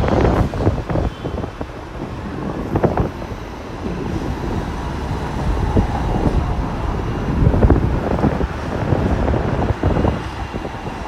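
Hong Kong double-decker tram running along its rails: a steady rumble with frequent knocks and rattles from the car, and wind buffeting the microphone.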